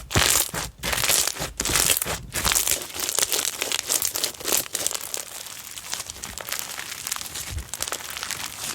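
Slime being squeezed and played with by hand, giving a dense run of small crackling, popping clicks, louder in the first couple of seconds.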